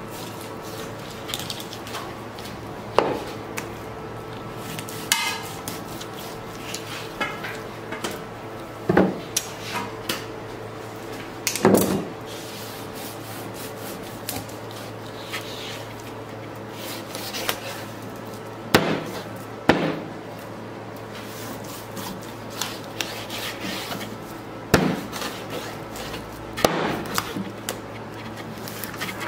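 Knife cutting raw sturgeon on a plastic cutting board: scattered sharp knocks of the blade striking the board, with quieter slicing and scraping between them, over a steady low hum.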